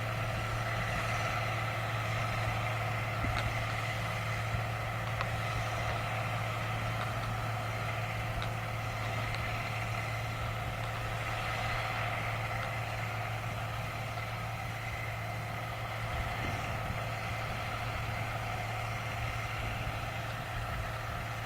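Massey Ferguson 1200-series tractor's diesel engine running steadily under load while ploughing, with a constant pitch.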